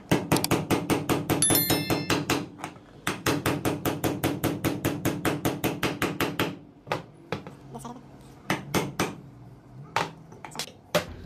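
Rapid, evenly spaced hammer taps, about eight a second, driving a pin into a freshly drilled hole in a diesel injection pump's aluminium body. Two runs of quick tapping with a short break about two and a half seconds in, then a few scattered single taps in the second half.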